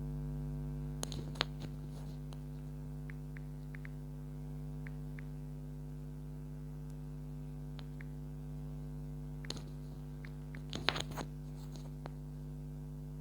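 Steady electrical hum with a few scattered small clicks and taps, clustered about a second in and again near the end.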